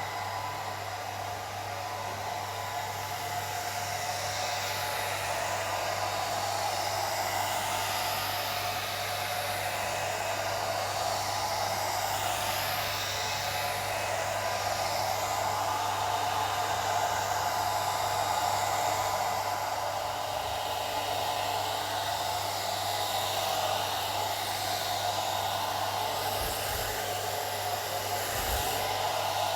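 Old hair dryer running continuously: an even blowing rush with a steady low hum underneath.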